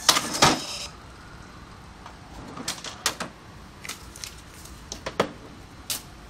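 Thermal receipt printers printing a short receipt in a loud burst of under a second, then a scatter of short crackles and clicks as the receipt paper is handled and torn off the printer.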